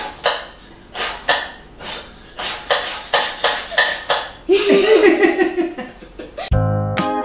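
Laughter and giggling: a string of short, breathy bursts, then a longer voiced laugh about four and a half seconds in. Piano music comes in near the end.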